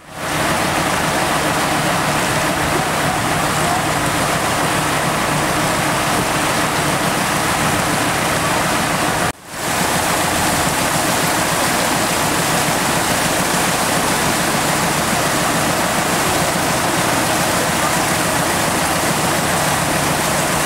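Steady rush and churn of floodwater as a vehicle drives through it, with a low steady hum underneath. The sound drops out briefly about nine seconds in.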